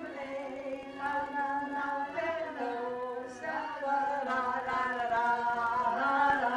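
Women's voices singing together, holding long notes that step up and down in pitch.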